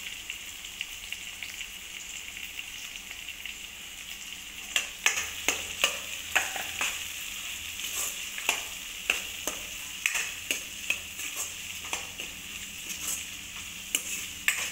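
Chopped onion and tomato, with garlic-ginger paste just added, sizzling steadily in hot oil in a kadhai. From about five seconds in, a metal spatula stirs the mix and knocks against the pan in irregular sharp clicks.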